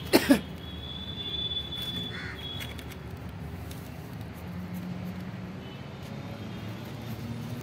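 Steady low outdoor rumble with a thin, high, steady insect-like tone for about two seconds, opened by a brief loud sound that falls in pitch right at the start.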